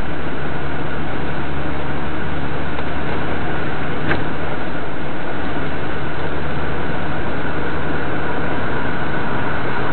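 Semi truck's engine running with steady road noise, heard from inside the cab through the dashcam's microphone. A single sharp click about four seconds in.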